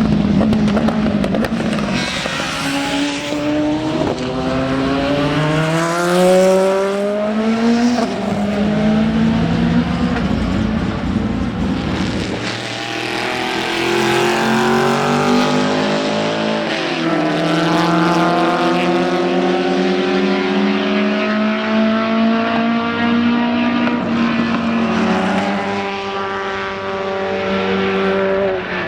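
Racing car engine accelerating hard along the track, the revs climbing and dropping back with each of several upshifts, then another run of rising revs later on.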